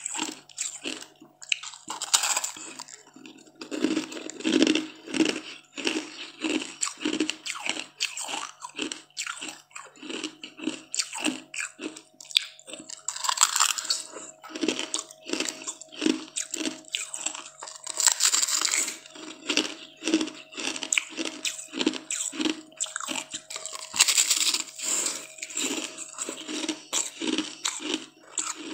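Close-mouthed crunching and chewing of a block of frozen green sweet ice, in a steady run of about two or three crunches a second, with a few longer, louder crunching bites spread through.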